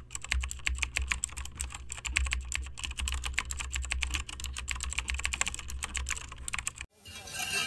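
Rapid, irregular computer-keyboard typing clicks, stopping suddenly near the end, after which electronic music begins to rise.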